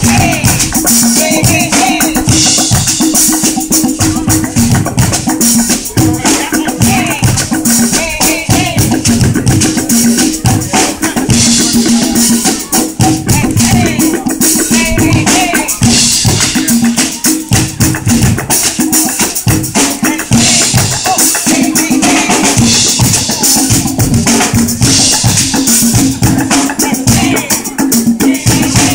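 Loud, upbeat music with fast, dense drumming and a rattling shaker, over a repeating low note pattern.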